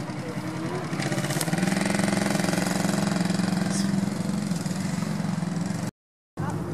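Off-road 4x4's engine running at raised, steady revs, growing louder about a second in, then breaking off abruptly near the end.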